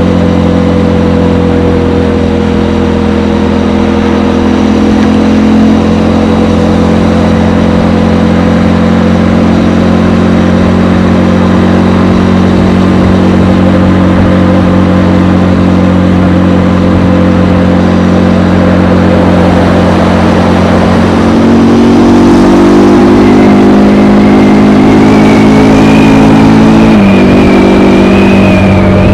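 Stock exhaust of a third-generation KTM Duke 390's single-cylinder engine running at a steady speed under way, then picking up revs about two-thirds of the way through with a rising whine, and dropping suddenly in pitch near the end.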